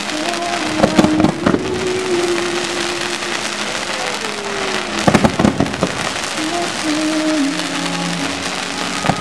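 Fireworks going off: a steady crackle with clusters of sharp bangs about a second in and again around five seconds in.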